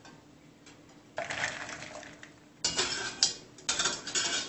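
A metal strainer scraping and clanking in a stainless steel pot as boiled quail eggs are scooped out, in three short spells of clatter about a second apart.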